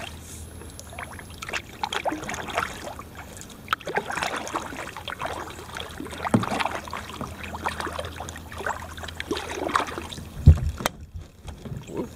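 Kayak paddling: the paddle blades dipping, splashing and dripping in uneven strokes. A low thump near the end is followed by a sharp click.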